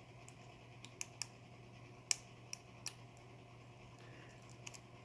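Scattered light clicks and ticks, about eight spread over the few seconds, from a lock pick working the pins of a Medeco 51S padlock.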